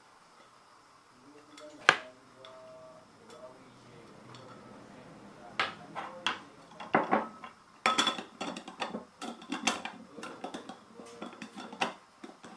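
A clear jar and its red plastic screw lid handled on a wooden table. A single sharp knock comes about two seconds in, with a faint ringing after it. From about five and a half seconds there is a run of clicks and clatter as the spatula is set down and the lid is fitted and screwed onto the jar.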